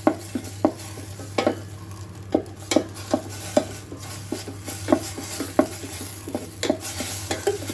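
A utensil stirring and scraping scrambling eggs against the metal bottom of an electric kettle, with irregular knocks about twice a second over a light sizzle of egg frying in oil.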